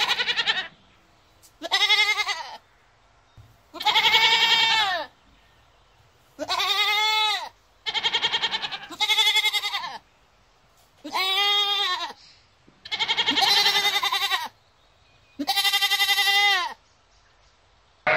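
Goats bleating: about nine separate calls, each a second or so long and falling in pitch at the end, several with a quavering tremble, with short quiet gaps between them.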